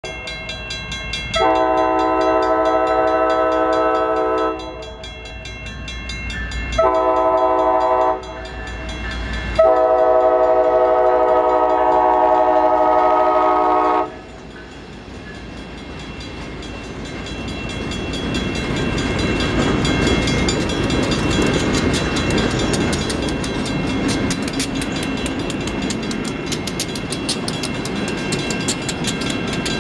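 An EMD GP39-2 diesel locomotive sounds its multi-chime air horn for a grade crossing: a long blast, a short one, then a long one. The locomotive then rumbles through the crossing, its engine and the wheels of the freight cars clattering over the rails, growing louder as it passes. A crossing bell rings rapidly throughout.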